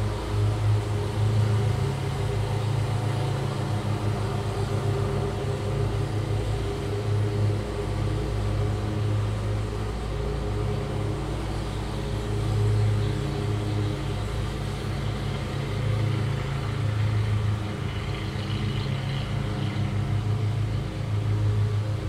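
Lawn mower engine running steadily at a constant pace, with a low, even hum that swells and eases a little in loudness.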